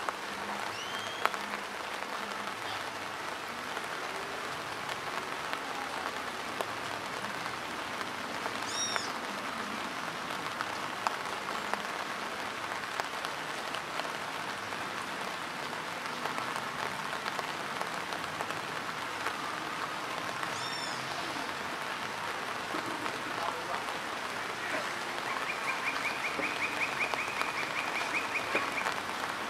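Steady rain falling on a muddy dirt road and the vegetation around it, an even patter throughout. A bird gives a short call twice, and a rapid trill sounds near the end.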